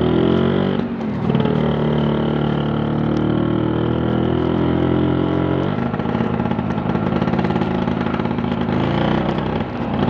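Vespa PTS scooter's small two-stroke single-cylinder engine running under way as it is ridden. Its note climbs, breaks off briefly about a second in and settles lower, rises again after about six seconds, and dips once more near the end.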